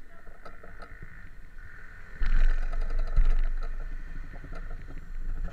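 Roadside traffic noise with scattered clicks; about two seconds in, a heavy low rumble on the microphone starts suddenly and carries on, louder than the traffic.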